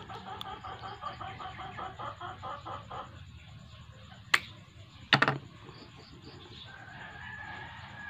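A chicken clucking in a quick run of short notes for about three seconds. Then a spring-loaded finger-lancing pen snaps once as it pricks a fingertip, with a short clatter of clicks about a second later. A rooster crows faintly near the end.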